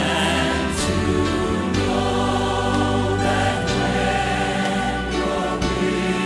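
Gospel choir singing with instrumental accompaniment, holding long sustained chords.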